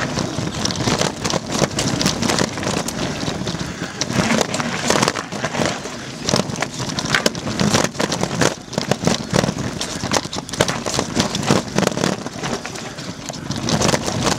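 Mountain bike descending a rough dirt singletrack at speed: tyres crunching over dirt and loose stones, with a dense, irregular clatter of knocks and rattles from the bike.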